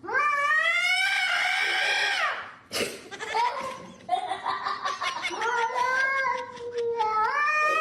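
A cat yowling in two long drawn-out calls: the first rises and then falls away after about two seconds, the second wavers and climbs again near the end. A short sharp click falls between them.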